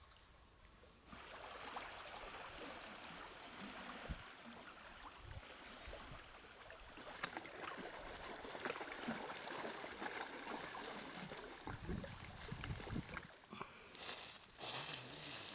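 Quiet lapping and trickling of small waves against the stones of a lake shore, with scattered light crackles. A few louder rushes of noise come near the end.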